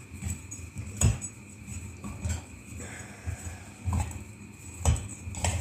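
Screwdriver turning a screw out of a stove fan's metal body, with a few sharp metal clicks and knocks from the tool and the fan being handled.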